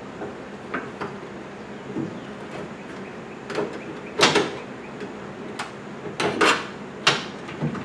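Irregular clicks and clunks of a door lock actuator and its linkage rods being handled and pried at inside a 1997 Dodge Dakota door, with the loudest knocks about four seconds in and a cluster around six to seven seconds.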